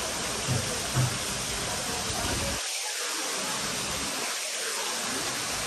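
Water splashing steadily as it pours off the tiered marble ledges of an indoor fountain into its basin. Two soft low thumps come about half a second and a second in.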